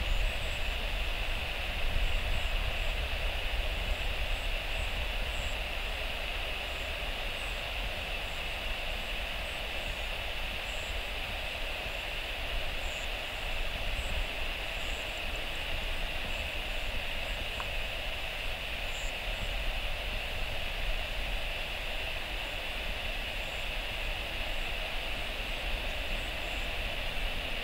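Steady outdoor noise: a low, fluttering rumble of wind on the microphone under a steady high hiss.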